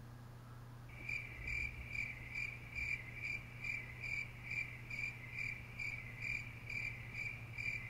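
A cricket chirping steadily, a high thin trill pulsing about two times a second, starting about a second in.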